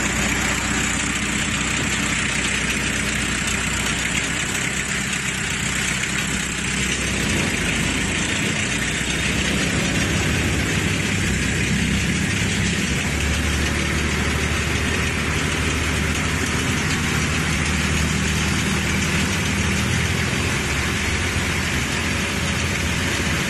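Outrigger boat's inboard engine running steadily while the boat is under way, over a constant hiss. The engine note shifts slightly about a third of the way in.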